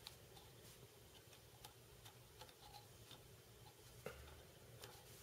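Faint, scattered light clicks and taps of an Allen key and small rifle parts being handled, with a slightly sharper click about four seconds in.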